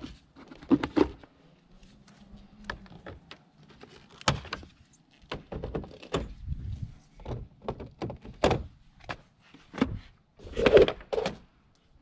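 The hinged plastic cover of an outdoor coax cable enclosure being opened and handled. It makes irregular knocks, clicks and thunks, with the loudest cluster of thunks near the end.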